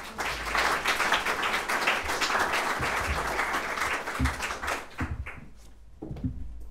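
An audience applauding, a dense patter of many hands that thins out and fades away after about five seconds. A few dull low thumps sound under the clapping.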